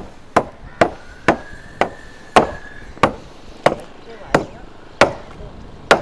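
A hand tool chopping into a wooden plank: about a dozen sharp, even blows, roughly two a second.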